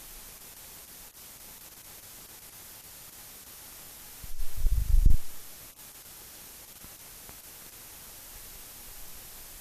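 Steady hiss of a silent film transfer, with one brief low thump about halfway through.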